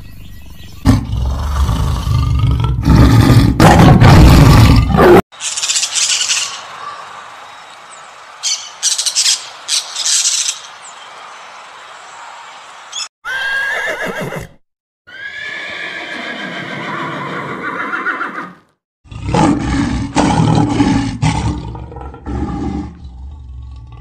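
A string of separate animal sounds joined by abrupt cuts. A tiger's deep, loud growling roar fills the first five seconds. Higher, sharper calls from a keel-billed toucan follow, with other short calls after them. Low growls and grunts from lions come near the end.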